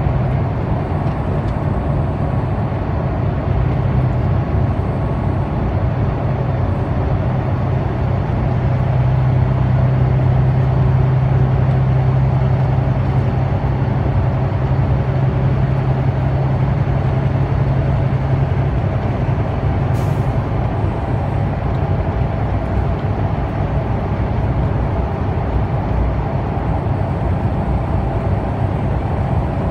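Big truck's diesel engine and road noise heard from inside the cab while driving at steady speed: a continuous low drone with a strong hum, heaviest from about 9 to 19 seconds in.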